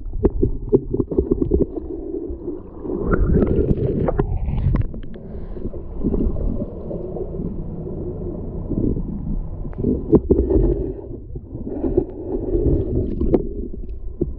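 Muffled underwater sound: water gurgling and sloshing around a camera dipped below the surface, with scattered clicks and knocks.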